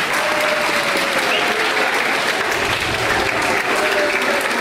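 Audience applauding steadily, with a faint held tone sliding slightly lower beneath the clapping.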